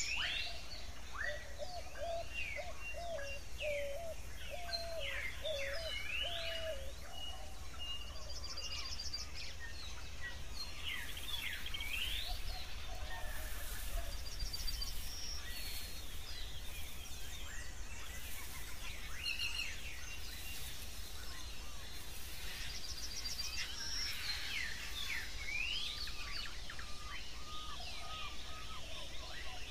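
Outdoor birdsong ambience: many birds chirping and calling throughout, over a steady low rumble of background noise.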